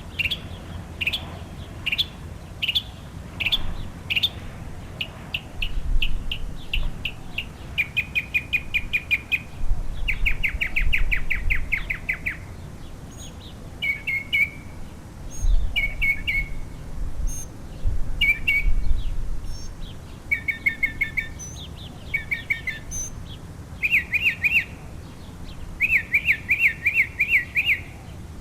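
Northern mockingbird singing: a long run of varied phrases, each a quick note or trill repeated several times before it switches to the next, over a faint low rumble.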